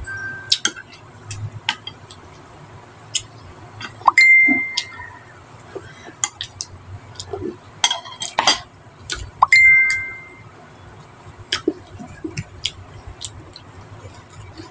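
Phone chat-notification chimes: a short, steady high tone three times, near the start, about four seconds in and about nine and a half seconds in. Under them, a scatter of small clicks and clinks from eating with a metal spoon from a bowl, plus mouth sounds of chewing.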